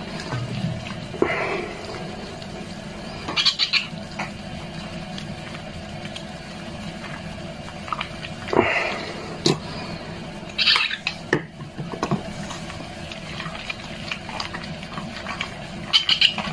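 A young cat meowing several times in protest while it is being bathed, with small splashes of water.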